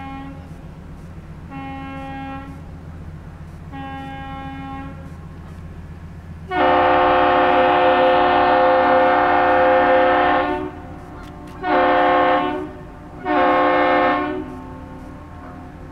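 Ship's horn salute of one long and two short blasts, answered in kind. A fainter, distant horn finishes its salute with two short blasts. Then a much louder horn returns it with one long blast of about four seconds followed by two short ones: the traditional captain's salute exchanged between the arriving ship and the Aerial Lift Bridge.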